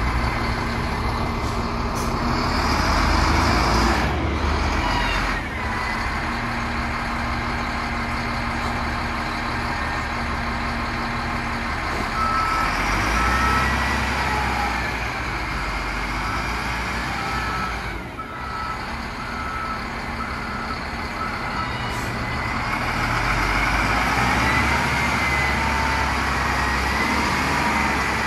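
SHANTUI L55-B5 wheel loader's diesel engine running as the machine is driven, its note rising and falling. Its reverse alarm beeps about once a second for roughly ten seconds in the middle.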